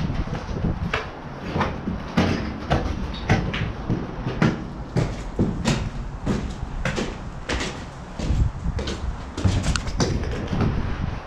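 Footsteps on debris-strewn concrete stairs: a steady run of sharp scuffing steps, about one and a half a second, with grit and brick rubble underfoot.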